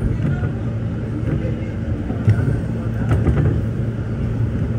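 New York City Subway L train running on the track, heard from inside the car: a steady low rumble, with a couple of sharp clicks about two and three seconds in.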